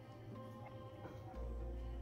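Background music with sustained held notes; a deep bass note comes back in a little past halfway.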